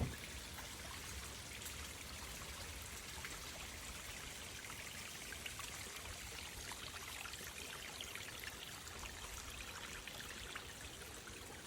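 Faint, steady trickle of running water, with many small irregular drips and splashes.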